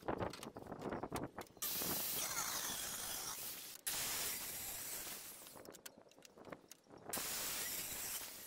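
Makita circular saw cutting through pallet wood in stretches of a couple of seconds: starting about a second and a half in, again just after four seconds and fading, and once more near the end. Sharp knocks of boards being handled come before the first cut.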